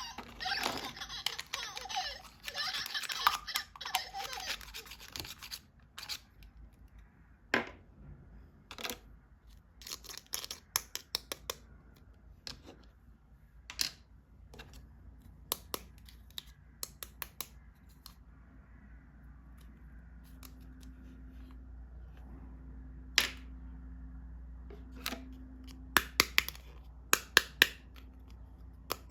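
Plastic toys and packaging being handled during an unboxing: scattered sharp clicks and taps of hard plastic, with a few seconds of laughter at the start.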